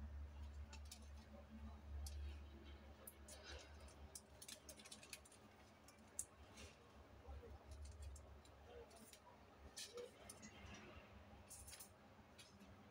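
Faint, scattered clicks and light handling noise from a plastic plate and a fork being handled, otherwise near silence.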